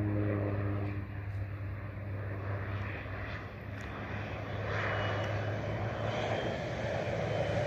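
Air Tractor 402B crop duster's turboprop engine and propeller droning steadily in flight, dipping a little early on and then growing louder over the second half as the plane comes back toward the listener.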